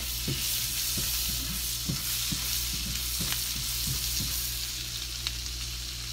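Chopped onions sizzling in melted butter in a frying pan, with a spoon stirring and scraping them for the first four seconds or so. After that the steady sizzle goes on alone.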